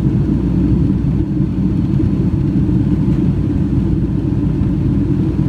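Passenger plane's engines and airflow during takeoff, heard from inside the cabin as a loud, steady low rumble.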